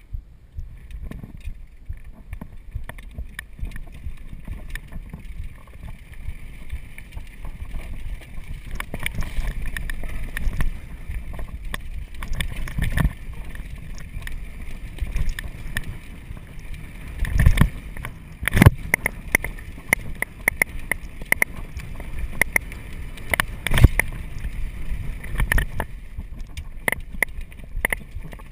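Mountain bike ridden over a rough dirt trail: a steady low rumble of tyres and wind on the microphone, with the bike clattering and knocking over bumps and roots. The hardest knocks come about 13, 17, 19 and 24 seconds in.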